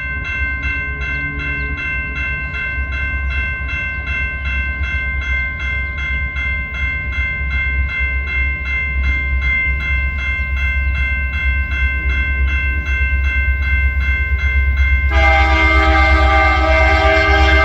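Railroad crossing bell ringing with rapid, evenly spaced strokes, over a steady low rumble. About fifteen seconds in, the approaching freight train's locomotive horn begins sounding, a loud held chord of several tones that becomes the loudest sound.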